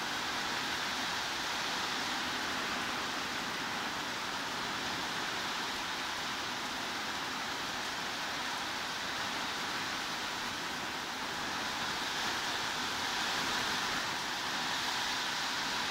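Steady heavy rain, an even hiss with no separate drops or thunder standing out, swelling slightly near the end.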